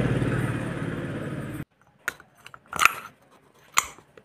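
Steady engine-like vehicle noise that cuts off suddenly about a second and a half in, followed by a few sharp metallic clinks as the parts of a motorcycle starter motor, its armature and steel housing, are handled and fitted together.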